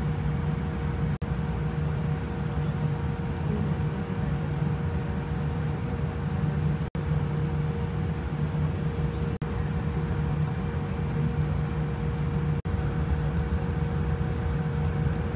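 Steady cabin noise of a Boeing 787-10 airliner in flight: a constant low rumble of engine and airflow noise with a steady hum, briefly cut out four times.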